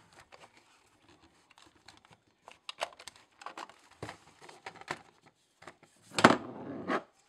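Handling noise from a Super 8 camera's film compartment and a plastic Kodak Super 8 film cartridge being taken out: scattered small clicks and plastic rattles, with a louder rustling clatter about six seconds in.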